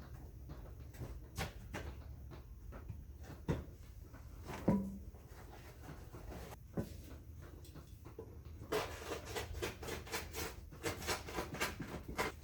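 Scattered knocks and clicks of hand work while fitting insulation, over a low steady hum; in the last few seconds a quick run of sharp clicks follows, several a second.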